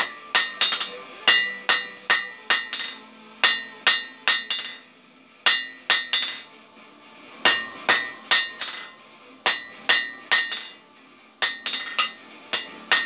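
Hand hammer striking red-hot steel on an anvil, forging the hot end of a bar into a ring. The blows come in runs of about three a second with short pauses between, each with a bright metallic ring.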